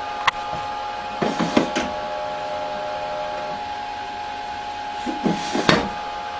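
Knocks and clicks of a Hitachi U-2000 spectrophotometer's sample-compartment lid and a plexiglass sample being handled as the sample is taken out. There is a click near the start, a cluster of knocks a little after a second in, and the loudest knocks about five and a half seconds in, over a steady hum.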